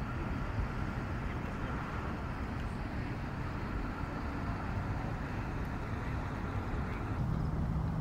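A steady low rumble of distant engines, with a faint steady hum coming in about seven seconds in.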